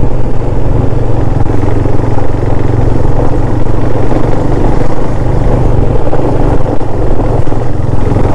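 KTM Duke 390's single-cylinder engine running steadily while the motorcycle is ridden along a road, with a constant rushing noise over it.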